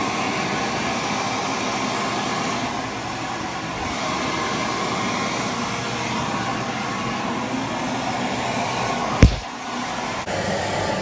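Push-button wall-mounted electric hand dryer blowing steadily. A single sharp knock about nine seconds in, after which the blowing is quieter.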